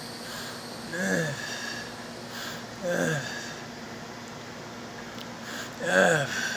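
Stridor: harsh, pitched breaths drawn through a narrowed upper airway, three of them, about a second, three seconds and six seconds in, each falling in pitch. The last is the loudest.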